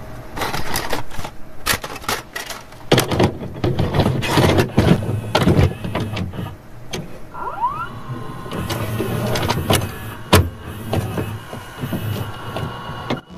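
Video cassette recorder mechanism: a run of clunks and clicks over a small motor whirring, with a short rising whine about halfway through.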